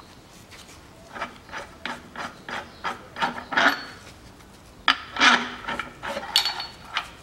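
Short, irregular metallic rasps and clicks of a hand wrench working the mounting bolt of a lower engine mount (torque rod) as it is bolted in. The strokes start about a second in, and the loudest come near the middle and toward the end.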